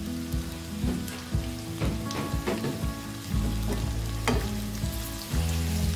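Sliced onions and grated ginger sizzling as they fry in hot oil in a nonstick wok, with a few sharp ticks and pops from the oil.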